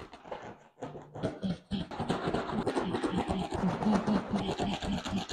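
Small paint roller rolled back and forth over a stretched canvas, a scratchy rolling sound in quick strokes that comes in short passes at first and runs continuously from under two seconds in.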